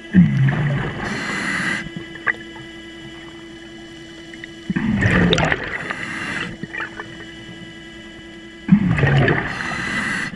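A diver breathing through a scuba regulator underwater: three bursts of bubbling and hissing about four seconds apart. Under them runs the steady hum of an underwater scooter's motor.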